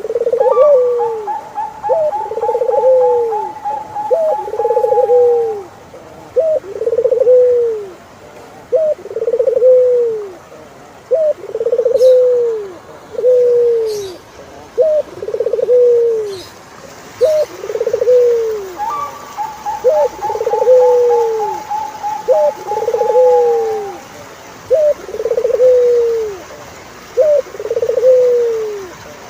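Turtle doves cooing in a steady rhythm, about one coo every two seconds: each coo is a short rising note followed by a longer note that rises and falls. Twice, a higher, slowly falling note is held for several seconds over the coos.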